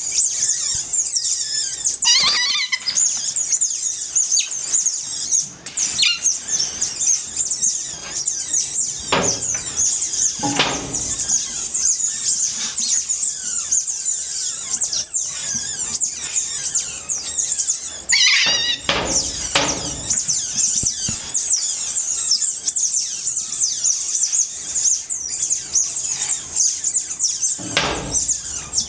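Asian small-clawed otters chirping and squealing in a rapid, continuous high-pitched stream, with a few dull knocks scattered through.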